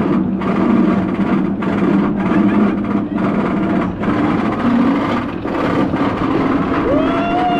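Steady loud theme park noise: a continuous rumble with voices mixed in. Near the end, a single high call rises, holds briefly and falls.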